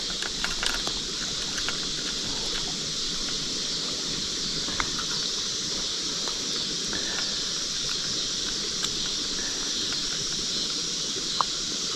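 Steady outdoor background hiss, with a few small clicks and taps in the first couple of seconds.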